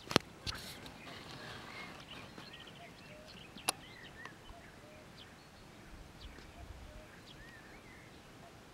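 Faint outdoor ambience with scattered short bird chirps and calls. Two sharp clicks stand out, one near the start and one about midway.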